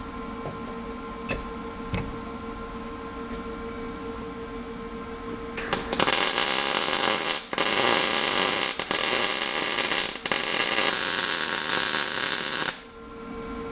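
A Lincoln 210MP welder laying a weld bead on a steel steering bracket: a steady electrical hum, then about seven seconds of loud arc crackle, broken briefly two or three times, that stops abruptly near the end.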